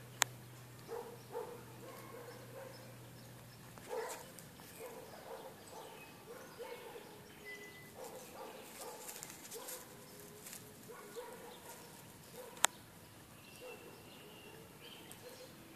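Faint, scattered short animal calls, with two sharp clicks, one just after the start and one about three-quarters of the way through, and a low hum that stops about four seconds in.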